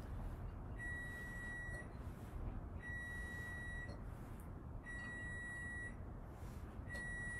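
An electronic beeper sounding four times: a steady, high single-pitched beep about a second long, repeating every two seconds, over low background rumble.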